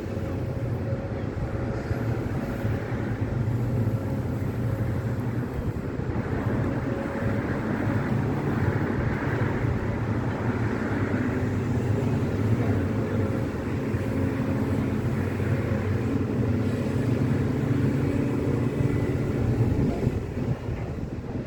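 Heavy crawler excavator's diesel engine running steadily under work, a deep even drone that eases slightly near the end.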